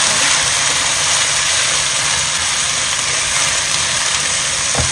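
Sliced pork liver frying in hot oil in a nonstick wok: a loud, steady sizzle, with a spatula scraping the pan near the end.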